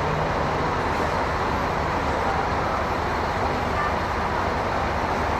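A bus running, with a steady low engine hum under even road and traffic noise.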